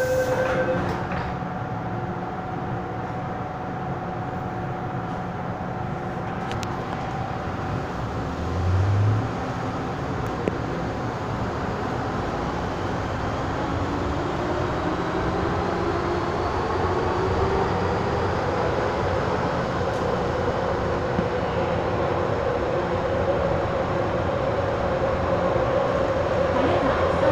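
Inside an MTR M-Train electric subway car pulling out of a station: the door-closing beeps stop just after the start, then the car rumbles while a traction-motor whine slowly rises in pitch as the train gathers speed. A dull thump comes about nine seconds in.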